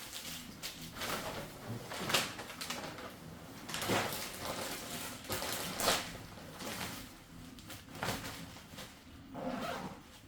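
Packing noises: bags and items being handled, with irregular rustling and scraping and louder swishes about two, four and six seconds in.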